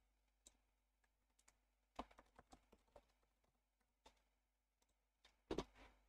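Faint computer keyboard typing and mouse clicks: scattered single clicks, with a short run of keystrokes about two seconds in.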